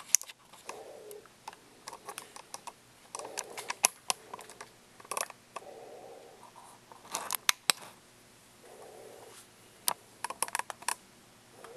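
Irregular sharp clicks and taps, some in quick clusters, with patches of soft rustling between them, like close handling and movement noise.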